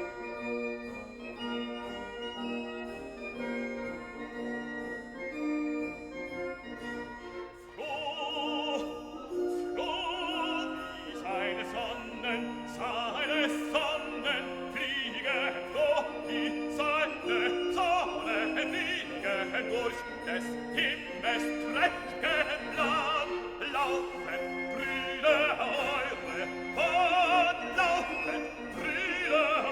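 Background music: a classical piece with held keyboard-like notes, joined about eight seconds in by an operatic voice singing with vibrato over orchestral accompaniment.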